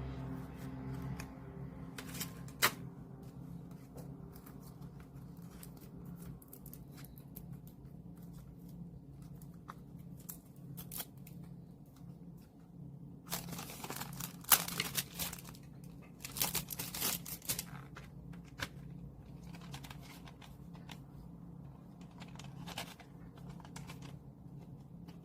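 Album packaging being handled and opened: scattered clicks and light rustling, with a few louder bursts of tearing and crinkling of plastic wrap and paper near the middle, over a steady low hum.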